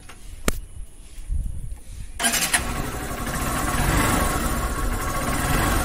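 Motorcycle being started: a sharp click, a brief low crank, then the engine catches about two seconds in and keeps running, getting a little louder near the end.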